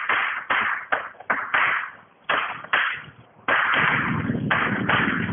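Chalk writing on a blackboard: a quick run of about a dozen short taps and scratches, with one longer scrape a little past the middle.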